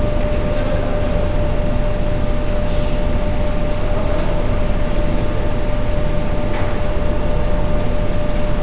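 Industrial flour-mill machinery running steadily: a constant low rumble with a steady whine over it.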